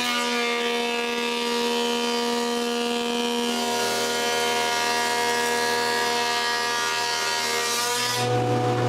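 Combination jointer-planer running as a thickness planer while glued-up oak panels are planed down: a steady whine with a hiss over it. The hiss thins near the end.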